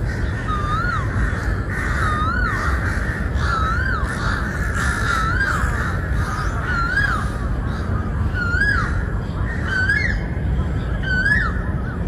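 Crows calling over and over, roughly once every second or so. Each call is a clear note that rises then falls in pitch, over a steady low rumble.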